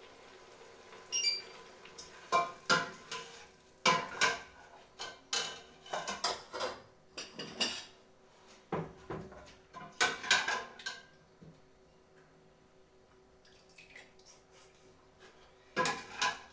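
Metal ladle and skimmer clinking and scraping against stainless steel pots, with cutlery clinking on a china plate: a run of sharp clinks that stops about eleven seconds in, then two more near the end.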